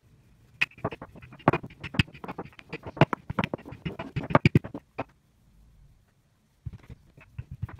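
Wooden rolling pin rolling out pretzel dough on a countertop: a rapid, irregular run of knocks and clatters as the pin and its handles work back and forth. The knocks stop about five seconds in and start again near the end.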